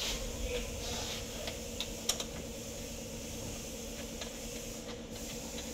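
Light, scattered clicks and rattles of hands handling wiring connectors and metal fittings around an engine's fuel rail, with a small cluster about two seconds in, over a steady faint hum.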